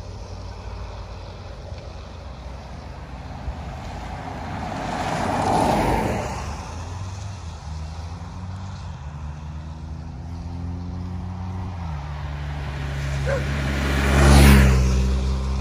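A car drives past about six seconds in, then a police motorcycle approaches, its engine note climbing, and passes close by near the end, the loudest moment.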